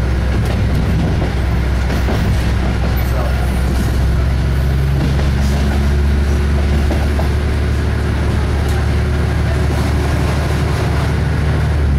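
Inside the cabin of an SA132 diesel railbus on the move: the diesel engine's steady low drone with the rumble of wheels on the track and a few sharp clicks.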